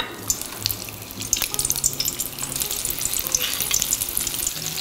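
Peach fritter batter deep-frying in hot canola oil: a dense crackling sizzle that grows busier and louder over the second half as more spoonfuls of batter go in, with a single click at the very start.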